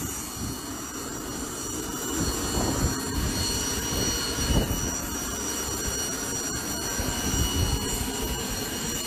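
Helicopter turbine engine running on the ground: a steady high-pitched whine of several tones over a rumbling hiss.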